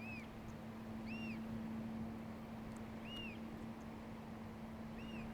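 Black oystercatchers calling: four short whistled calls about one to two seconds apart, each rising then falling in pitch. A steady low hum runs beneath.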